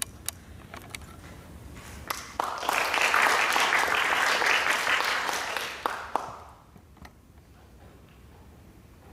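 A few footsteps on the wooden stage, then an audience applauding for about four seconds to greet a pianist coming on to play, fading away about six seconds in.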